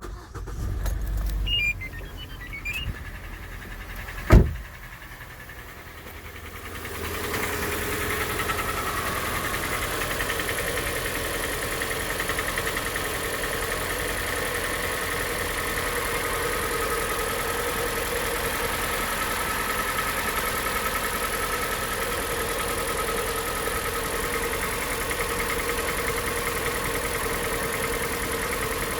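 Hyundai iX35's 2.0-litre G4NA four-cylinder petrol engine running cold, steady after about seven seconds, with the knock the owner complained of; the shop puts the knock down to the pistons. A single sharp thump about four seconds in.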